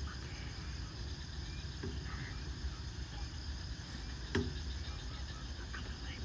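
Night insects, crickets among them, calling steadily over a low background rumble. One sharp click sounds about four seconds in.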